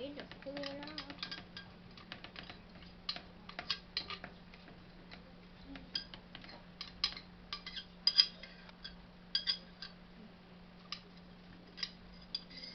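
Scattered light clicks and rattles of kitchen things being handled, at irregular times and loudest about eight seconds in, over a faint steady hum.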